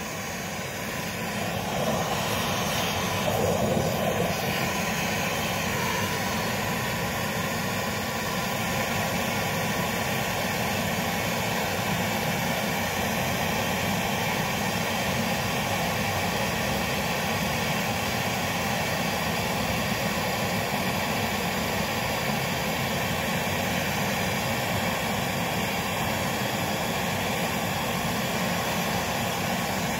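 MAP-Pro gas torch burning with a steady rushing hiss, swelling over the first couple of seconds as the flame is opened up, heating a copper refrigerant line joint for silver brazing.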